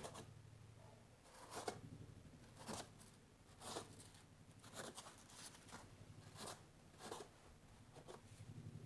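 Notched trowel scraping and combing thinset mortar into the drain cutout of a foam shower pan: faint, separate scraping strokes about once a second.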